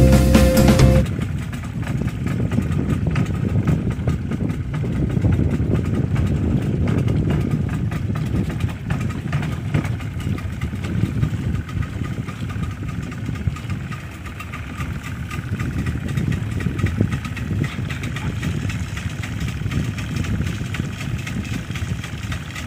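A boat's engine running steadily with a low rumble, mixed with wind and water noise. Music plays for about the first second, then stops.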